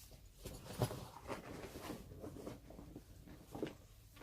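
Faint rustling and a few light clicks from a fabric travel bag and its shoulder strap being handled.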